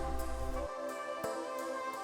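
Soft background music of held, steady tones, with a new note starting softly twice.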